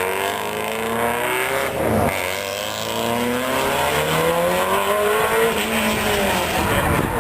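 Racing car engine accelerating hard, its pitch climbing, dropping at a gear change about two seconds in, then climbing again.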